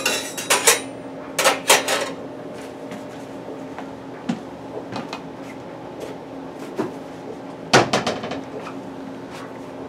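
Metal spatula clinking and scraping against a stainless steel skillet as raw hamburger patties are pushed into place. There are three short clusters of clanks: at the start, about a second and a half in, and near the end.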